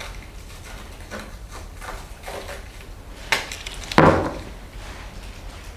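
Handling sounds: faint rustling of a disposable PPE coverall and micropore paper tape, a sharp click a little over three seconds in, then a knock about four seconds in as the roll of micropore tape is set down on a wooden table.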